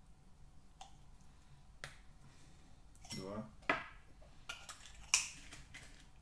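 Metallic clinks and light knocks of brass 16-gauge shotshell cases and small hand tools handled on a tabletop while priming the cases. Two sharp clicks, about three and a half and five seconds in, are the loudest.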